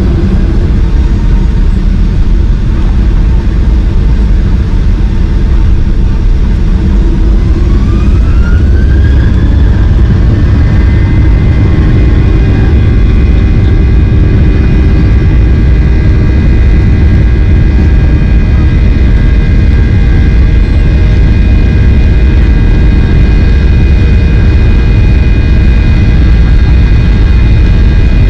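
Boeing 737-800's CFM56 jet engines over a loud, steady rumble. About eight seconds in, the engine whine rises in pitch and then holds at a higher, steady pitch: the engines spooling up to takeoff thrust.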